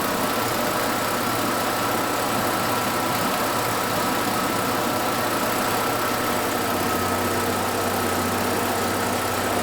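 Porsche 944's four-cylinder engine idling steadily with the air-conditioning compressor running while the system is charged, a steady whine over the idle. A low hum joins about seven seconds in.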